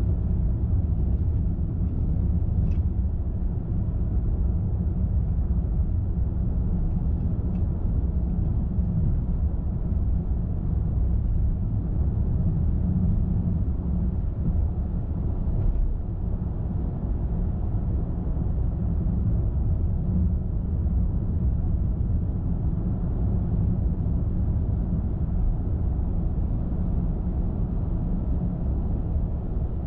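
Steady low road noise of a car driving: tyre roar and engine hum, with a few faint ticks.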